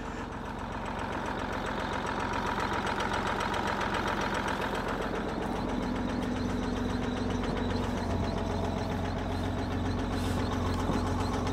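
Old semi truck's diesel engine idling steadily after a jump start, the engine having sat unused for about 25 years.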